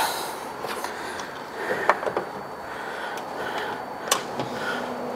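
Scattered light clicks and knocks of hands handling a portable air compressor and its metal mounting bracket.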